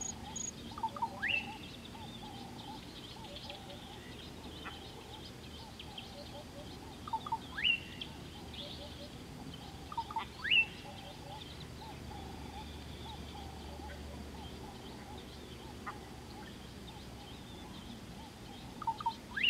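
A bird in African bush calling four times, each call a couple of short low notes followed by a quick rising whistle. Behind it runs a steady faint chorus of chirping birds and insects.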